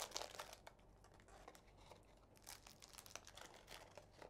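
Faint crinkling and crackling of a card deck's plastic wrapper being peeled away and handled, a scatter of small crackles with a sharper one at the very start.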